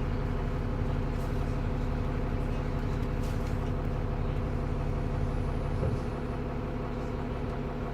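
TransBus Trident double-decker bus engine running steadily under way, heard from on board. About six seconds in the engine note changes and gets a little quieter.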